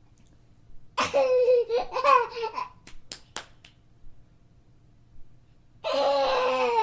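A small child laughing in two bursts: the first about a second in, lasting under two seconds, and a longer one starting near the end, with a few short sharp sounds between them.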